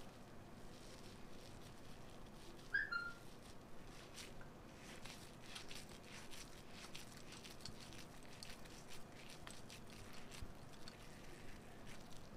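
Faint soft squishing and light clicks and taps of wet hands pressing water-moistened bread around a spiced potato filling to shape it into a ball. A short high chirp sounds once about three seconds in.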